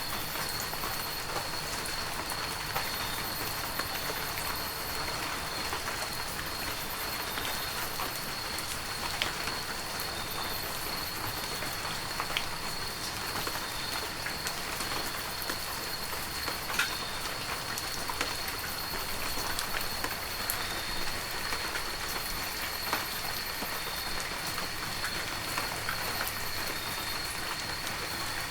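Heavy rain falling steadily: a dense, even hiss scattered with sharper hits of single drops. A thin, steady high-pitched tone runs underneath.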